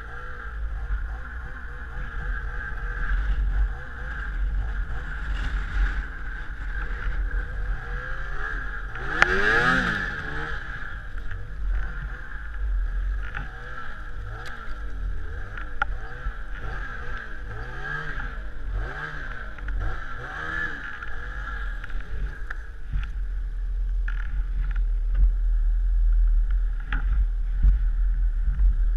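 Snowmobile engine running while the sled is ridden through deep snow, its pitch rising and falling as the throttle is worked. About nine seconds in there is a sharp rev, the engine pitch sweeping up.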